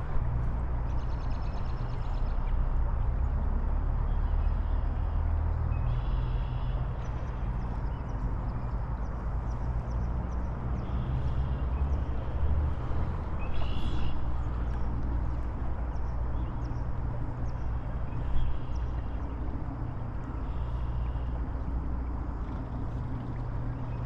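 Riverside ambience: a steady low rumble, with short high bird calls repeating every few seconds.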